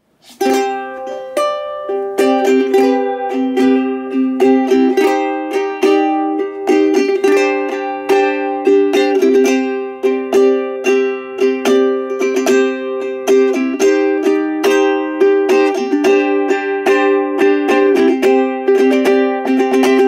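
A handmade solid-wood G-Labo 'Wagamama' soprano ukulele being strummed through a chord progression. The strumming starts about half a second in.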